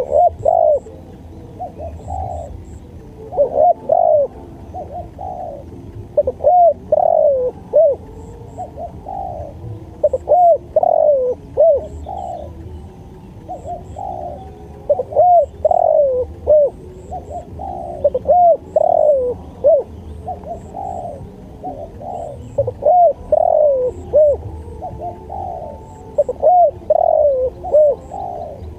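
Spotted dove (tekukur) cooing: short phrases of low, arched coo notes repeated every two seconds or so, over a faint low rumble.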